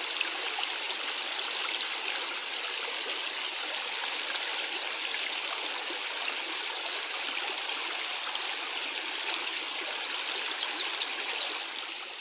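A shallow, rocky stream runs over stones with a steady rush. Near the end, four short, high, falling chirps sound in quick succession.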